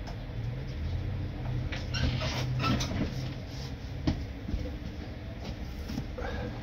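Heavy vehicle engine running with a low hum that swells for a couple of seconds and then eases off. A few knocks and clicks come through, with a sharp click about four seconds in.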